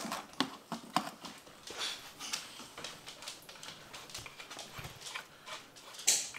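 Scattered light clicks and taps of handling: a dog nosing about at a cardboard box, then the clear vacuum hose being pushed onto the freeze dryer's vacuum pump fitting.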